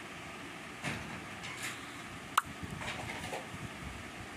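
Paneer cubes being tipped into a steel pot of warm water: a few soft knocks, and one sharp metallic clink with a brief ring about halfway through, like a bowl striking the pot's rim, over a steady low hum.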